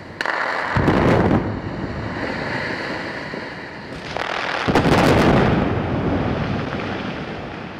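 Two controlled demolition blasts on a concrete dam being removed, the first about a quarter second in and the second about four seconds in. Each starts with a sharp crack and swells into a heavy rumble that slowly dies away.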